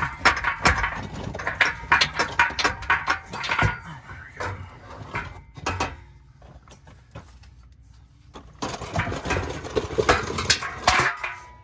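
Stock exhaust pipe and muffler of a Jeep Wrangler JL knocking and scraping, metal on metal, as it is worked off its exhaust hangers and walked out by hand: a quick run of clanks, a quieter spell in the middle, then more clatter near the end.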